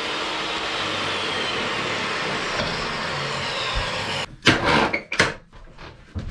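DeWalt jobsite table saw running steadily while mahogany strips are ripped into cleats; the noise cuts off abruptly a little over four seconds in. Several loud wooden knocks and clatters follow as the pieces and the saw are handled.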